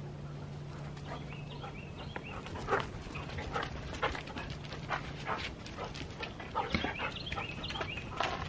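Husky whining and yipping excitedly, with short high calls coming again and again.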